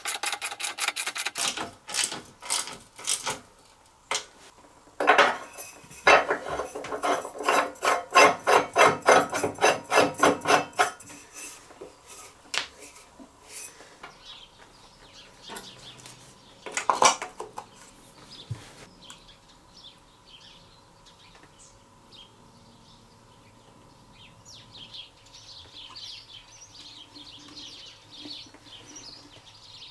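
Metal parts clinking and clicking as air filter housing parts are handled and fitted on the mower's engine. A dense run of ringing metallic clicks comes in the first third, then a couple of single knocks, then it goes quiet apart from faint chirps.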